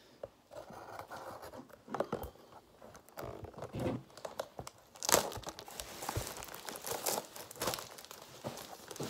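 Clear plastic shrink-wrap crinkling and tearing as it is pulled off a cardboard trading-card box, in irregular rustles and crackles, loudest about five seconds in.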